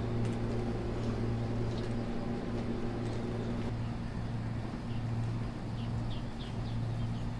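A steady low hum, with several short high bird chirps in the second half.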